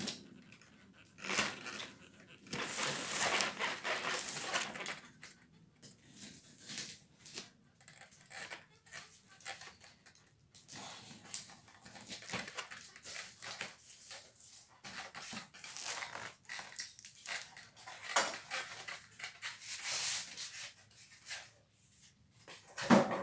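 Cardboard shipping box being cut and opened with a utility knife: irregular rasping of the blade through packing tape and cardboard, and scraping and crinkling of the flaps being pulled apart, loudest for a couple of seconds early on and again near the end, with a heavier knock just before the end.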